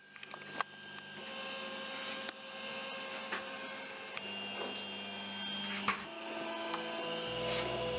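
Anet A8 3D printer's stepper motors whining as the print head and bed move at the start of a print. The tones jump to a new pitch with each move, with a few light clicks.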